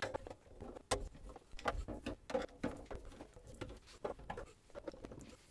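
A hand screwdriver backing out the screws of a Roland MC-505 groovebox's metal bottom panel: small, irregular clicks and taps of metal on metal.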